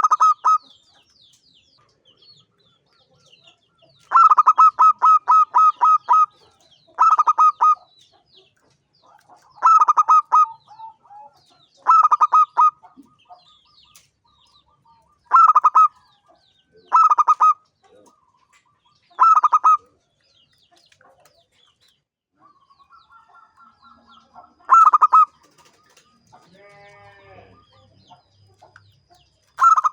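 Zebra dove (perkutut) singing its cooing song: phrases of rapid, staccato coos repeated about nine times, a few seconds apart, one of them longer near the start. Faint high chirps sound between the phrases.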